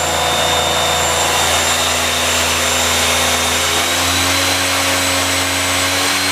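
Haas ST-10Y CNC lathe spindle running at about 5,000 rpm: a steady whine of several tones over a hiss. About four seconds in, the pitch rises slightly as the spindle speeds up toward 6,000 rpm.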